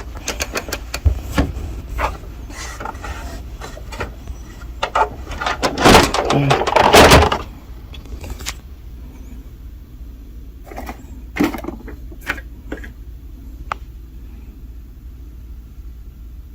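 Clicks, knocks and scrapes of a screwdriver and hands working on the plastic hinge of a laser printer's document feeder. They come thick in the first half and are loudest about six to seven seconds in, then thin out to occasional clicks.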